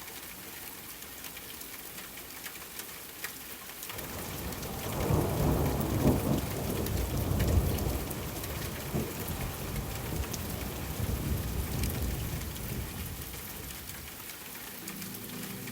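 Wood fire crackling in a fireplace: a steady hiss with scattered sharp pops. A low rolling rumble swells in about four seconds in and slowly dies away near the end.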